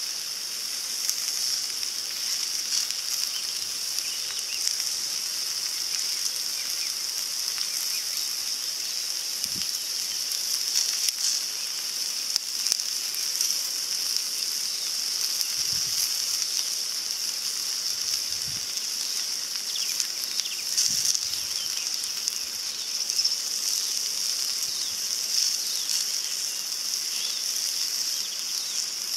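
Food frying in a small pan on a camping gas stove: a steady high sizzle with fine crackles.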